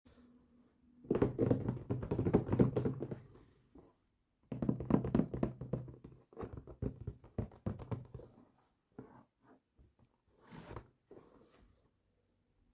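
Small plastic toy kitchen pieces handled and knocked together: two dense runs of taps and clatter, then a few scattered single taps.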